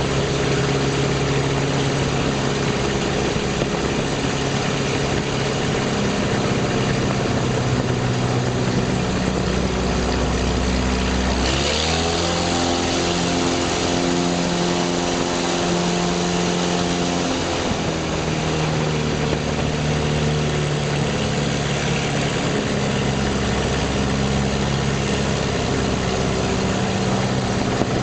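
Light aircraft's propeller engine heard from inside the cabin, running steadily with a constant rush of air noise. About a third of the way in the engine note rises as the throttle is opened, holds for around six seconds, then drops back to its earlier pitch.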